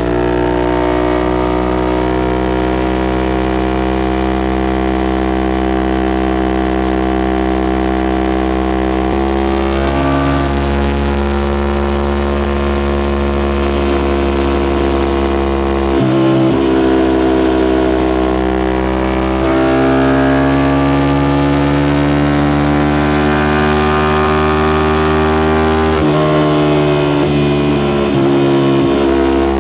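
Suzuki Gixxer SF 250's single-cylinder engine running through a Yoshimura R11 exhaust while riding, its note held steady or climbing slowly, with several sudden shifts in pitch where the rider changes gear or throttle.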